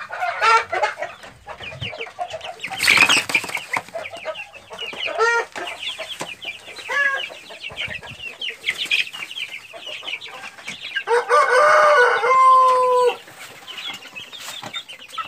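A flock of young chickens peeping and chirping over and over, with a rooster crowing once, about two seconds long, near the end.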